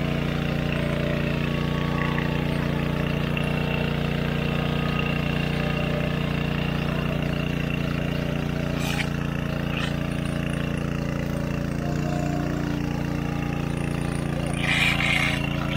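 An engine-driven water pump running steadily as it pumps a pond dry, with a brief louder noise near the end.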